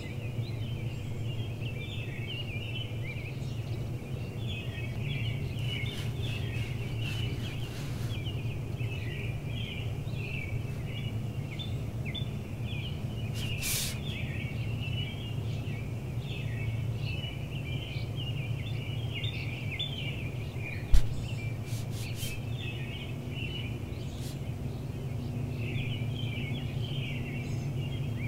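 Many small birds chirping continuously over a steady low background rumble. A few sharp clicks are scattered through, and there is one loud thump about 21 seconds in.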